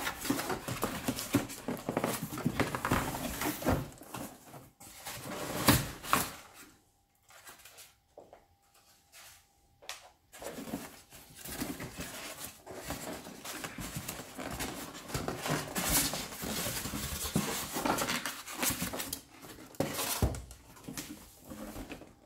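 Plastic packaging rustling and crinkling, with handling and scraping noises, as the robot vacuum is taken out of its box; there is a short pause about two thirds of the way through the first half.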